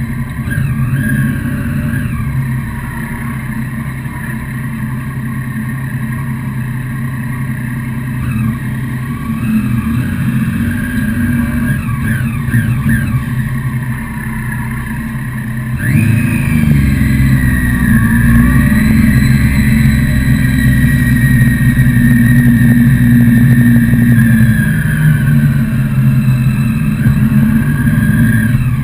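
Motorcycle engine heard from onboard at low road speed, with a few short throttle blips. About halfway through it gets louder and rises in pitch, holds steady, then eases off near the end.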